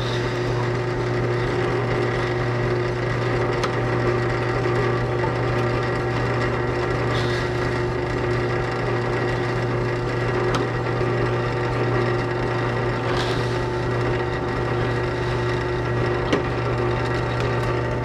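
Benchtop drill press motor running with a steady hum while a countersink bit cuts deeper mounting holes in an expanded-PVC speaker adapter ring. A few brief scrapes or clicks come every few seconds as the bit bites into each hole.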